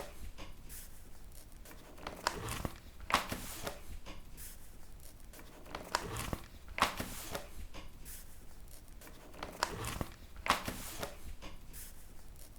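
Paper pages being turned by hand, each turn a quick crisp swish and rustle. The turns come in pairs about a second apart, with a pair roughly every three and a half seconds.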